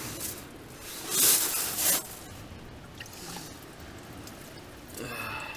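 Handling noise as a fish is picked up: a loud rustling hiss about a second in, lasting about a second, with quieter rustling around it.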